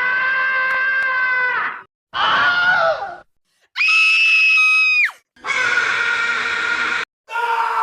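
Screaming sound effects played one after another: five screams, each cut off abruptly with a short silence between. The first is long and steady, the second falls in pitch, and the third is a high, thin, steady shriek.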